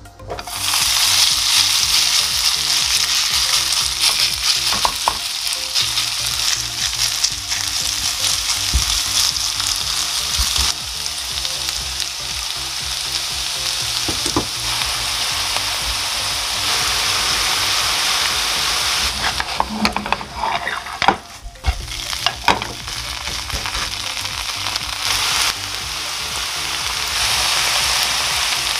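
Shredded potato, carrot and chili strips sizzling in hot cooking oil in a nonstick frying pan. The sizzle starts suddenly about half a second in and then runs loud and steady, with a few sharp clicks and a short dip in the middle.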